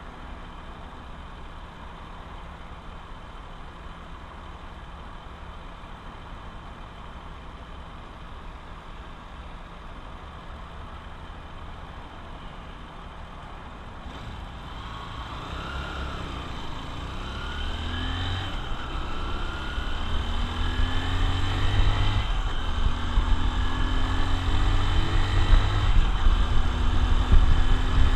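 Honda XR150L's single-cylinder four-stroke engine running steadily at low revs, then about halfway through pulling away and accelerating, its pitch rising and dropping back twice as it shifts up through the gears, getting louder toward the end.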